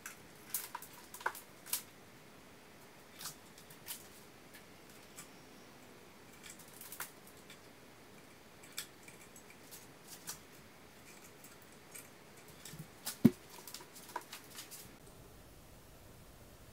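Scattered small clicks and taps of test-lead clips and wires being handled and fastened to a subwoofer's speaker terminals, with a sharper knock about 13 seconds in.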